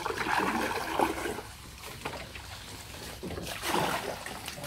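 Water splashing and sloshing in two surges: one lasting about a second at the start, a second shorter one near the end.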